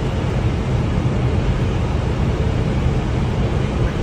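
Steady low noise of an airliner's engines and airflow heard inside the cockpit on final approach, unchanging throughout, with most of its weight in the deep bass.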